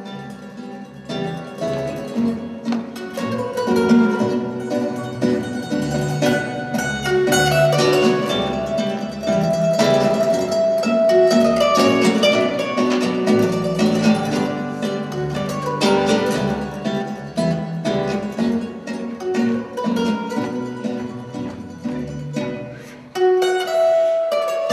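Instrumental music played on a plucked string instrument, a steady stream of quick plucked notes.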